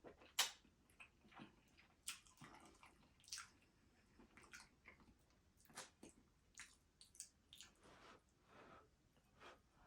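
Faint, close-up wet eating sounds: chewing with scattered lip smacks and mouth clicks at irregular intervals, the sharpest about half a second in.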